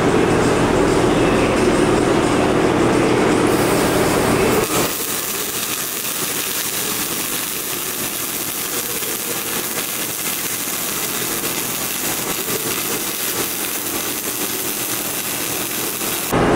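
Automated arc welding torch laying a weld overlay bead: a steady hiss of the arc that sets in abruptly about five seconds in and stops just before the end. Before it there is a loud, steady machine hum with low tones.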